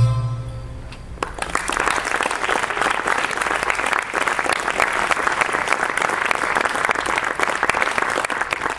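The last notes of a live music piece die away, and about a second later an audience breaks into steady applause.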